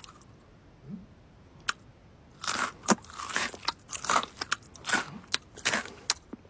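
A cat biting and chewing crunchy food, in a string of sharp crunches, two or three a second, from about two seconds in.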